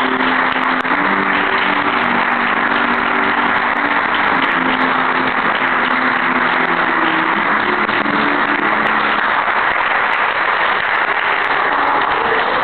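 Audience clapping and cheering loudly, with background music playing underneath.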